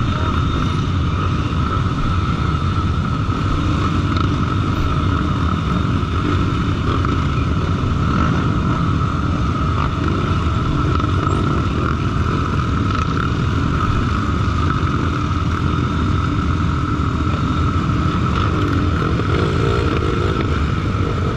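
Trail motorcycle engine running steadily while riding.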